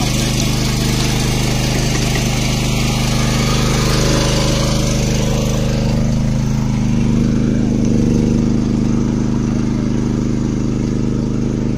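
Small engine of a walk-behind power tiller running steadily under load as its attachment earths up soil onto a ginger bed.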